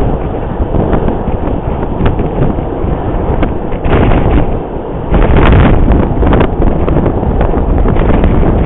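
Strong wind buffeting the camera microphone, a loud low rumble with irregular gusting thumps, the heaviest about four seconds in and again around five to six seconds in.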